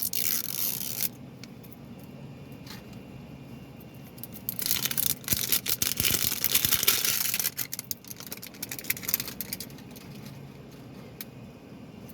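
Plastic shrink wrap being torn and crinkled off a Toy Mini Brands capsule ball. A short burst of tearing comes at the start, then a longer, louder stretch of crackling tearing in the middle, followed by a few scattered crinkles.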